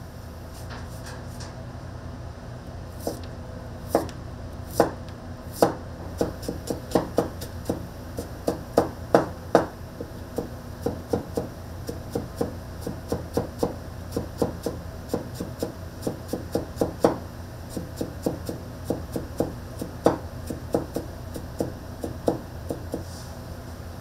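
A knife chopping on a cutting board: a long run of uneven, sharp knocks, two to four a second, over a steady low hum.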